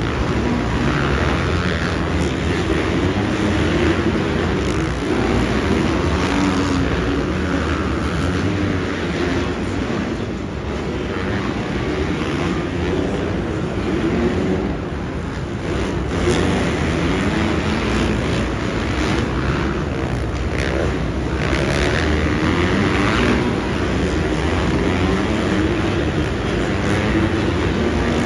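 Several motocross dirt bikes racing around an indoor arenacross track, their engines revving up and down over one another.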